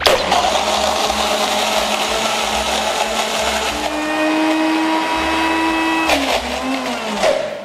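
Alton high-powered blender crushing a jar full of ice with avocado, honey and milk. It starts abruptly with a loud, noisy grind, and about four seconds in a steady whine comes through. About six seconds in the motor is switched off and winds down with a falling tone.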